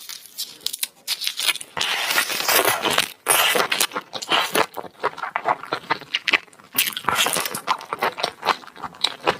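Close-miked eating sounds: a person chewing and biting food, many quick irregular clicks and wet smacks.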